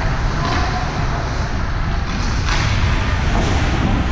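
Steady low rumble and hiss of a game's background noise, with a short scrape or knock about half a second in and a longer one around two and a half seconds in.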